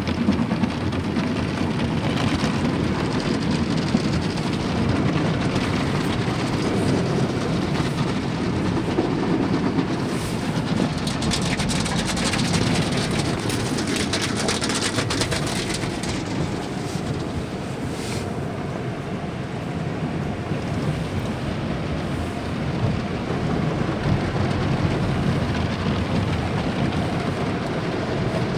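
Automatic car wash heard from inside the car: cloth brushes rumble and slap over the body while water sprays on the glass, a steady dense wash of noise. About a third of the way in, the spray hiss grows harder for several seconds.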